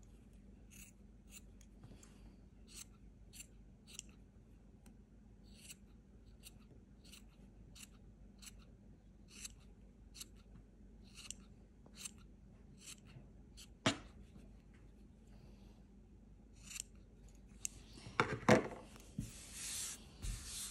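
Quiet, repeated snips of scissors trimming the acrylic yarn ends of a pom-pom, about two cuts a second, with one sharper click about two-thirds of the way through. Near the end, a rubbing sweep as a hand brushes across the table.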